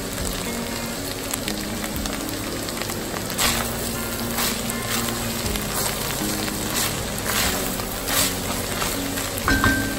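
Beef and pork mince with onion sizzling as it fries in an enamelled cast-iron Dutch oven. A spoon scrapes and knocks against the pot several times in the second half as the meat is stirred.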